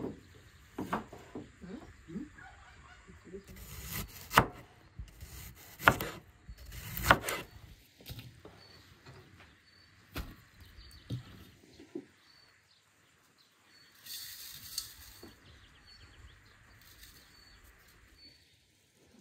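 Kitchen knife slicing an onion and knocking on a wooden cutting board: a few light knocks, then three loud sharp knocks about a second and a half apart.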